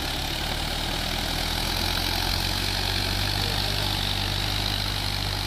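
Tractor engine running steadily as the tractor ploughs a flooded paddy field on cage wheels.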